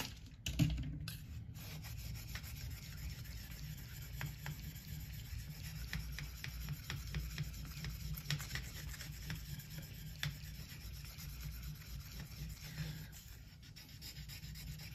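Stainless Opinel knife blade being rubbed flat against a wet ceramic whetstone (an AliExpress diamond ceramic 3000), fingers pressing the whole side of the blade onto the stone. A quiet, continuous rubbing with a brief louder scrape about half a second in.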